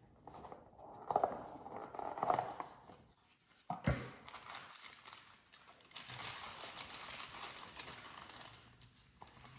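Handling of a small cardboard gift box with a single knock about four seconds in, then tissue paper rustling and crinkling as it is unfolded.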